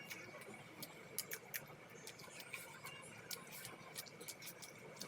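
Close-up eating sounds: chewing with irregular small wet clicks and smacks of someone eating puri with chicken curry, over a faint steady high tone.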